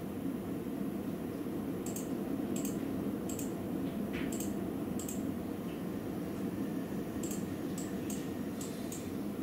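Heavy rain falling steadily, a dense even hiss, with scattered sharp ticks close by from about two seconds in.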